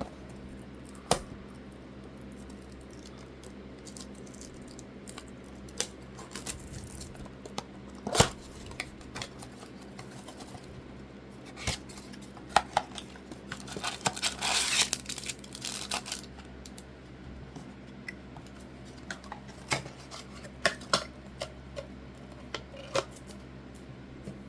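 Blaster boxes of sports trading cards being unwrapped and opened by hand: scattered sharp clicks and taps of cardboard and plastic, with a longer stretch of tearing and crinkling wrapper about halfway through.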